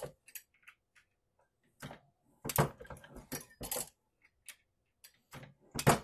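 Brass .45 Colt cases clinking against the metal shell holder and ram of an RCBS single-stage reloading press as cases are run through the resizing and depriming die. The sound is a series of sharp metallic clicks in short clusters, loudest about two and a half to four seconds in and again near the end.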